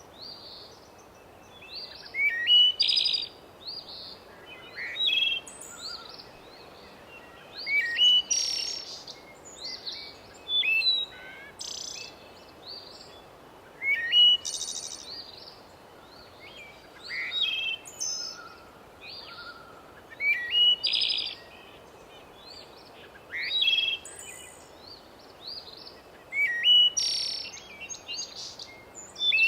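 Forest birdsong: short phrases of rising and falling chirps repeating about every three seconds over a soft, steady background hiss.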